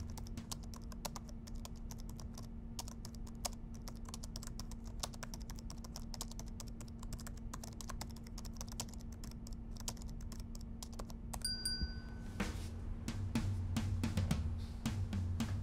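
Fast typing on a laptop keyboard: a dense, steady run of key clicks. About eleven and a half seconds in there is a short electronic tone, and drum-backed music comes in over the typing for the last few seconds.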